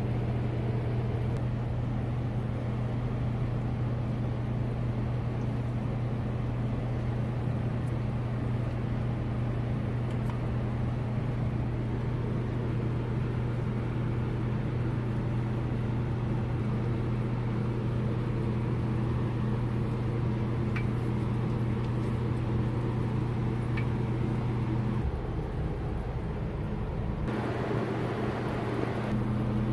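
Steady low machine hum, one pitch held with its overtones, under a faint even hiss; the hum drops away about 25 seconds in and returns near the end.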